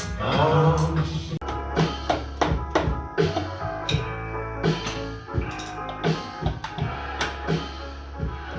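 Background music with drums and guitar keeping a steady beat.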